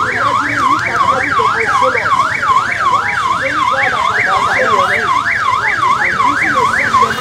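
Loud electronic vehicle siren on a fast yelp, its pitch sweeping up and down about three times a second, cutting off abruptly at the end.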